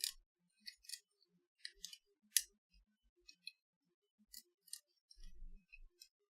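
Irregular small, sharp clicks and light scrapes of hand tools on the parts of a compact digital camera being taken apart. The sharpest click comes about two and a half seconds in, and a dull low bump follows near the end.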